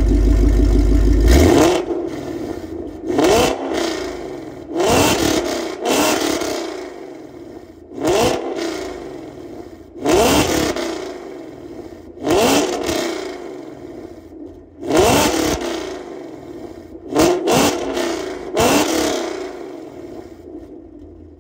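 Mustang GT's 5.0 V8, through catless headers, a Corsa double H pipe and a Corsa Extreme cat-back exhaust, revved in short blips while standing. A second or so of low rumble is followed by about a dozen sharp revs, each dropping back toward idle, some of them in quick pairs.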